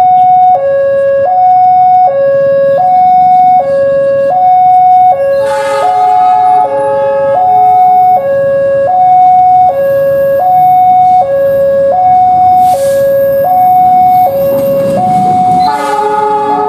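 Railway level-crossing warning alarm sounding, switching back and forth between two tones, each held for under a second, as the crossing is closed for an approaching train. A louder, brief pitched sound breaks in about six seconds in and again near the end.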